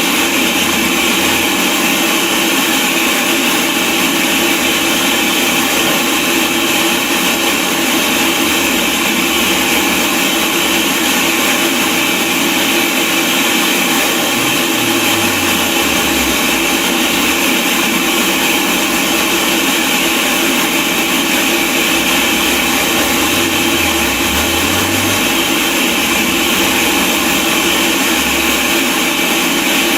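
Steady, loud static hiss of a dead broadcast channel, unchanging throughout: the signal has cut out.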